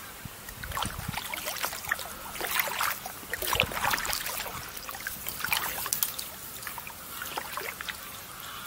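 Double-bladed kayak paddle dipping and pulling through the water, each stroke bringing a splash and drips off the blades, about one every second or two.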